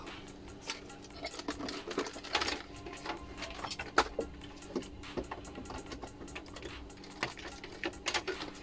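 Irregular light clicks and taps of small objects being handled, with one sharper click about four seconds in and a quick cluster near the end as the LED backlight tester and its leads are brought over the panel. A faint steady hum runs underneath.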